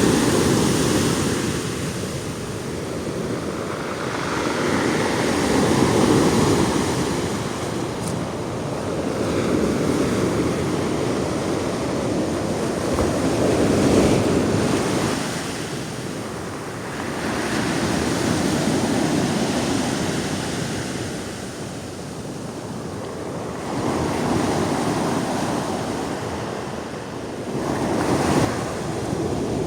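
Big sea waves breaking on the shore, the surf swelling and fading every several seconds.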